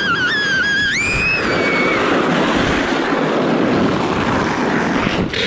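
Sled sliding fast down an icy, snow-covered slope: a steady, loud scraping rush of the runners over the crust, with wind on the helmet camera. In the first two seconds a rider lets out a high, wavering squeal that jumps up in pitch about a second in.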